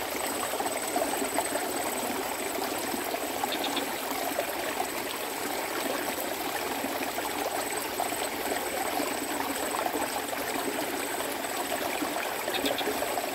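Water in a small ditch running steadily, an even trickling rush, with a thin steady high-pitched tone over it.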